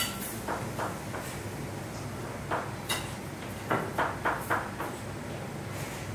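Kitchen clatter: irregular sharp knocks and clinks of utensils or tools on hard surfaces, with a quick run of four knocks about two-thirds of the way through, over a steady background hum.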